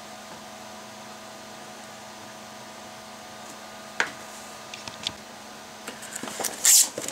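Steady background hum, broken by a single sharp knock about four seconds in and a few light clicks. Near the end comes loud crinkling of plastic and cardboard: a box holding a roll of disposable plastic piping bags being handled.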